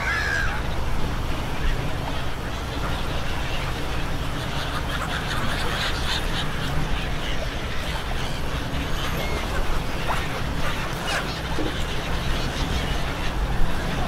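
A large flock of seagulls calling over people chattering in Thai, with a steady low engine hum underneath.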